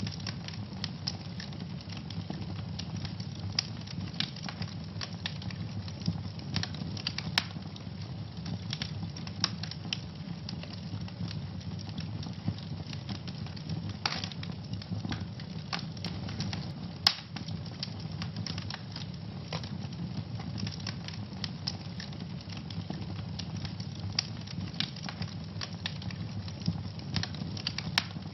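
Wood fire in a fireplace crackling, with many irregular sharp pops and snaps over a steady low rumble of flames; one pop about 17 seconds in is louder than the rest.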